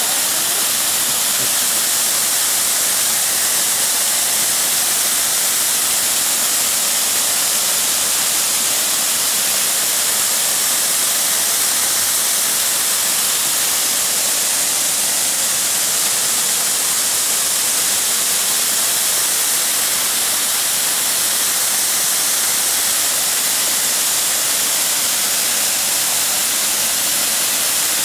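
A waterfall pouring and splashing onto rocks close by: a loud, steady hiss of rushing water that stays even throughout.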